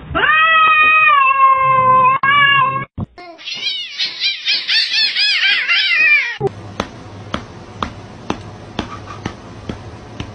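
Cats fighting: a long drawn-out yowl that sags slightly in pitch, then a rapid string of short screeching cries. In the last few seconds come a series of sharp, separate taps.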